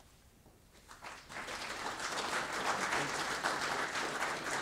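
Audience applauding, the clapping starting about a second in after a brief hush.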